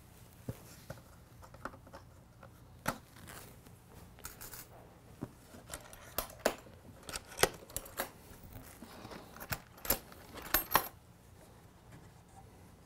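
Small metal pins being pulled from the latches of a pine wooden crate and set down: irregular sharp clicks and light metallic clinks, coming thickest in the middle of the stretch.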